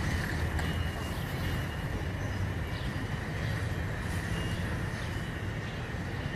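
Steady low rumble of vehicle engine noise with a faint high whine.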